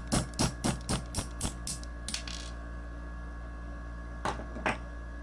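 Light metal-on-metal taps of a small hammer on a 3/32 pin punch, about four a second, driving the striker pin out of a Springfield XD pistol slide; the tapping stops about two seconds in, and two more taps follow near the end.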